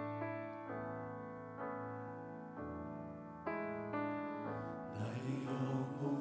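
Red Nord stage keyboard playing a slow worship-song intro on a piano sound, with held chords changing every second or so. A man's singing voice comes in about five seconds in.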